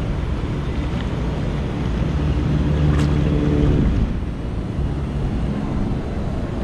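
Wind buffeting the microphone, with a motor's steady hum coming up for about two seconds in the middle, then dropping in pitch and fading away.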